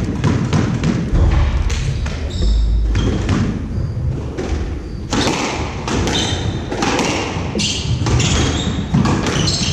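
Squash rally: the hard pops of the ball off rackets and the court walls echoing in the enclosed court, with dull thuds and the short squeaks of shoes on the wooden floor.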